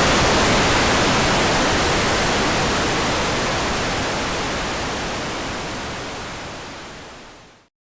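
Hair dryer running with a steady rush of air, fading out gradually to silence near the end.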